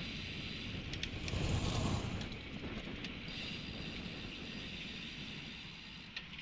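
Riding noise from a slow-moving road bicycle in traffic: wind rushing on the microphone and motor vehicles close by. A louder low rumble swells about a second and a half in, and there are a few light clicks.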